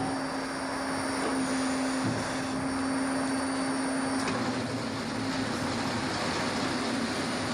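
Sawmill machinery running: a steady mechanical noise with a steady low hum, the sound shifting slightly about four seconds in.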